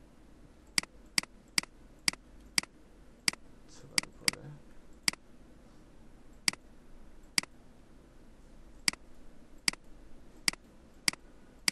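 Computer mouse clicking: about sixteen sharp single clicks at irregular intervals, as shapes are selected and colour sliders adjusted in a design program.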